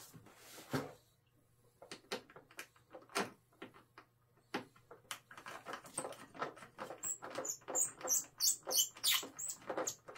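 Screwdriver backing small screws out of the wing-strut mounts of an X-Fly Twin Otter RC plane. It makes scattered clicks at first, then from about halfway a quick run of clicks and high squeaks.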